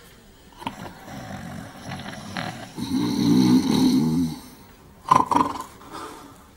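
Two men snoring in their sleep. A light rasping snore comes first, then a long loud snore in the middle, then a shorter, sharper snort about five seconds in.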